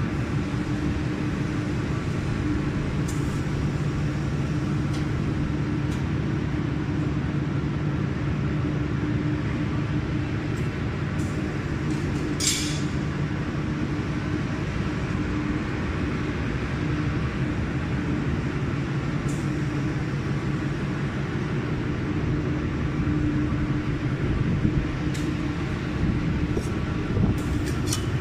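1 kW handheld laser welding machine switched on and idling, its cooling fans and water chiller giving a steady low hum. A few faint clicks, and a brief high hiss about twelve seconds in.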